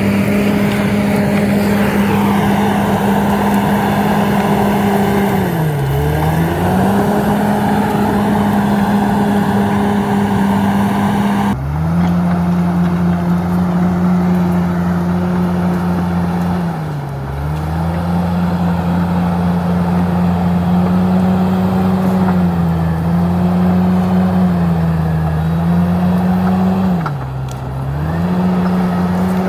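Komatsu D68ESS crawler bulldozer's diesel engine running steadily at high revs, its pitch and loudness dipping briefly and recovering about five times, most deeply about six seconds in and again near the end.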